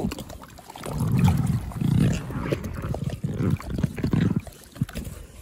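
Inflated rubber inner tube creaking as it is rubbed and shifted, in several low, rough creaks.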